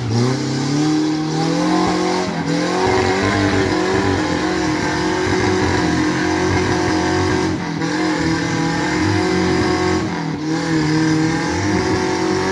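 Suzuki off-road 4x4's petrol engine revving hard and held at high revs as the vehicle powers out of muddy water and climbs a slippery slope. The revs rise over the first couple of seconds, then dip and pick up again twice as the wheels fight for grip.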